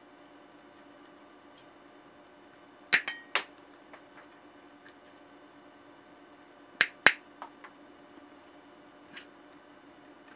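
Sharp metallic snaps of side cutters biting through bicycle cable at the stem-mounted shift levers: three snips about three seconds in, then two more a little under four seconds later.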